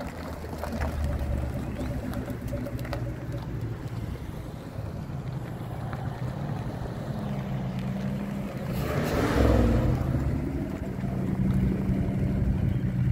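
Ford Mustang engines running at low speed as two cars roll past one after the other, their exhaust note swelling as the second car comes closer near the end. A brief rush of noise comes about nine seconds in.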